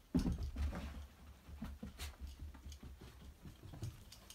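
A small dog scampering across carpet and scrabbling up onto a bed: soft pattering and light taps and thumps, loudest in the first second, over a low rumble.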